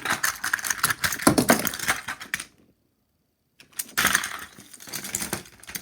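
Toys clattering and knocking together in rapid, dense clicks, as if being roughly handled or crashed. The sound cuts to dead silence for about a second midway, then the clatter resumes.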